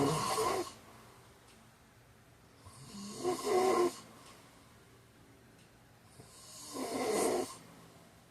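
A man snoring in slow, regular breaths, one snore about every three and a half seconds. One snore is just ending as the sound begins, and two more come a few seconds apart.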